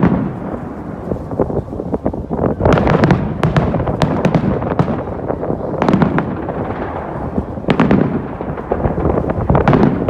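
Fireworks bursting in a rapid, uneven series of bangs and crackles, over strong wind buffeting the microphone.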